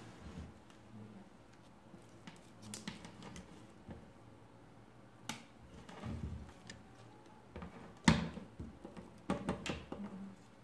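Handling noise from a perfboard circuit board and its wires being picked up, turned over and set on a wooden table: scattered clicks and knocks, the loudest about eight seconds in, with a quick run of them shortly after.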